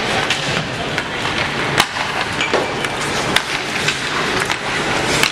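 Youth ice hockey game heard from the stands: irregular sharp clacks of sticks, puck and boards over a steady arena din. The loudest clacks come about two seconds in and near the end.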